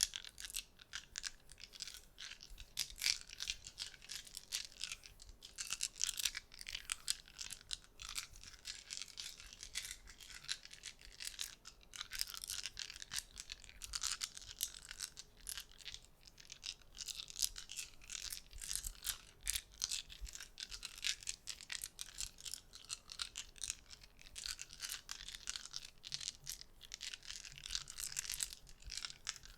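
Dense run of soft, rapid clicks and crackles from small objects handled close to the microphone, many small ticks a second with no pause.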